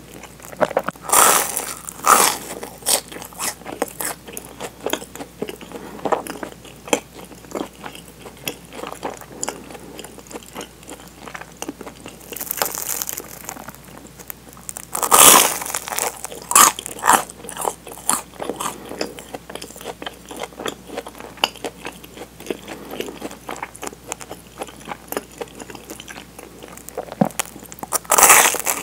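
Crisp bites into a toasted Nutella sandwich and crunchy chewing of the toast close to the microphone, with the loudest bites about a second in, midway through and near the end.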